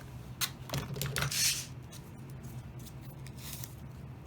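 Handling noises of a thin embossed metal sheet backed with double-sided tape being flipped over: a few light clicks and taps and a short crinkly rustle.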